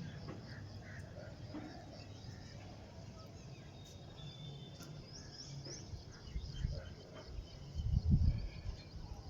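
Faint outdoor ambience: birds chirping briefly, heard over a steady low rumble. The rumble swells to its loudest about eight seconds in.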